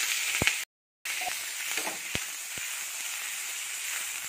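Sliced green chillies and curry leaves sizzling in hot oil in a frying pan for a tempering: a steady hiss with a few sharp clicks. The sound drops to dead silence for a moment just under a second in, then the sizzling resumes.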